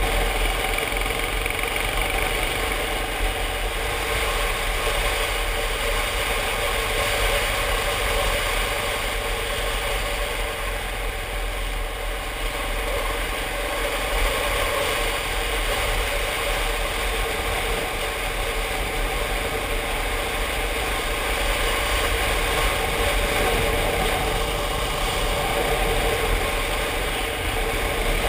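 Yamaha Ténéré motorcycle engine running at a steady cruise, with wind and road noise.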